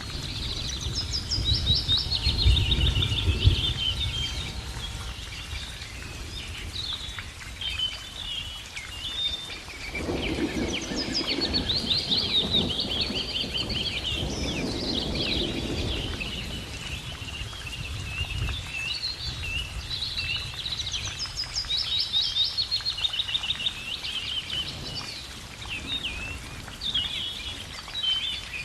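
Songbirds singing and chirping nonstop, several overlapping songs with quick trills. A low rumble rises under them twice, about a second in and again about ten seconds in.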